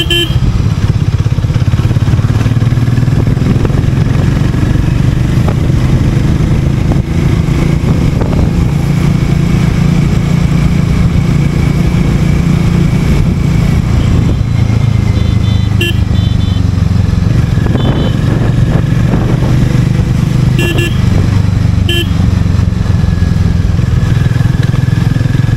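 Harley-Davidson X440's 440 cc single-cylinder engine on its stock exhaust, running steadily under way with its note rising and falling slightly with the throttle.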